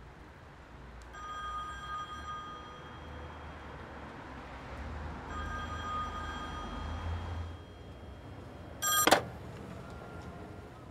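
A payphone in a red telephone box ringing: two rings of about two seconds each, a few seconds apart. Then a sharp clack as the receiver is lifted off its hook to answer.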